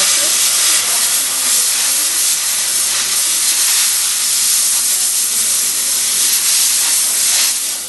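Jewelry steam cleaner's nozzle blasting a ring with steam at about 80 pounds of pressure: a steady, loud hiss that fades out near the end.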